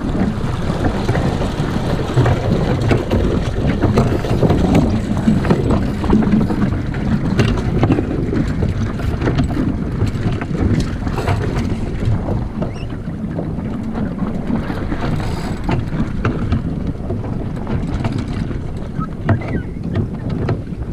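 Wind buffeting the deck-mounted camera's microphone as a Snipe sailing dinghy moves under sail, with water rushing and splashing along the hull.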